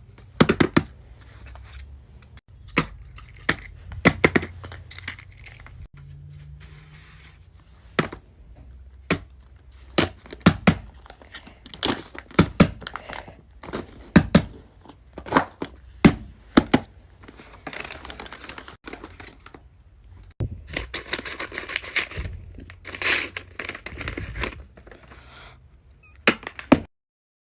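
Fidget toys being handled: an irregular series of sharp clicks and knocks, with stretches of crinkling, rustling noise in the second half. It stops abruptly about a second before the end.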